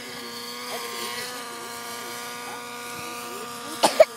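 Align T-Rex 700N radio-controlled helicopter's two-stroke nitro engine and rotors running in flight: a steady buzz with its pitch wavering as it manoeuvres. Two sharp knocks near the end.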